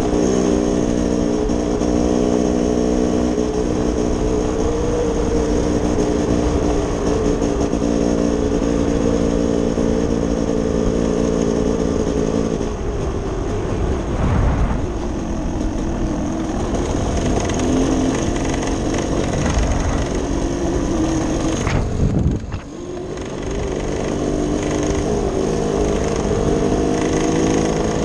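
Engine of a trail vehicle running at a steady cruise, with rushing noise over it. The engine note shifts about halfway through, eases off sharply for a moment a little after that, then picks back up.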